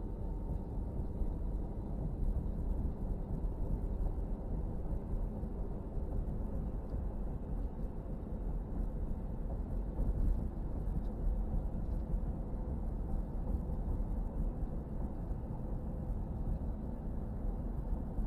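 Steady low rumble of a car being driven, tyre and engine noise, with a faint steady hum over it.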